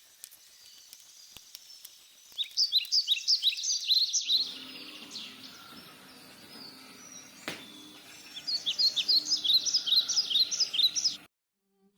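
Birds chirping in two quick, high-pitched runs of many short notes, one a few seconds in and one near the end, over a steady low hum that starts about four seconds in.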